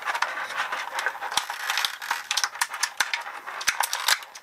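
Thin clear plastic blister tray crinkling and crackling, with rapid irregular clicks and snaps, as an action figure and its weapons are pried and slid out of their moulded slots.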